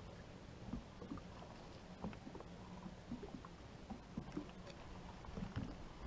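Small fishing boat on the water: scattered light knocks and clicks over a low steady hum.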